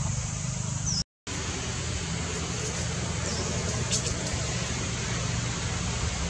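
Steady low outdoor rumble with a hiss over it, broken by a brief dropout to silence about a second in, and one small tick near the middle.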